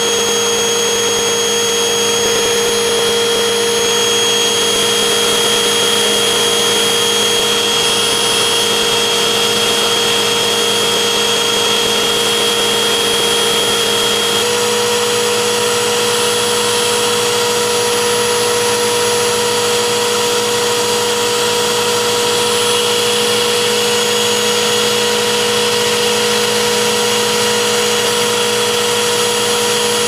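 Dirt Devil bagless vacuum cleaner's motor running steadily and loudly with a constant whine, its pitch stepping up slightly about halfway through.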